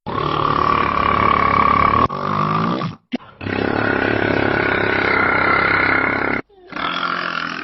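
A person snoring very loudly with a harsh, rasping rattle: a run of long drawn-out snores, the longest about three seconds, with short breaks between them.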